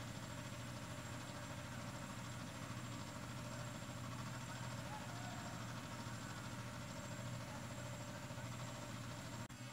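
A steady low mechanical hum under an even hiss, running unchanged until an abrupt cut near the end.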